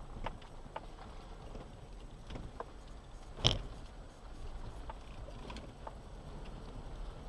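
Off-road vehicle driving slowly over a rough track: a low rumble with scattered clicks and knocks, and one sharp knock about three and a half seconds in.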